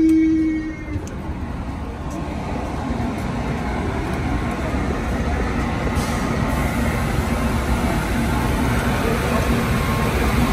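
NCTD Coaster commuter train standing at the platform with its engine running: a steady low rumble that grows a little louder. A short steady tone sounds at the very start.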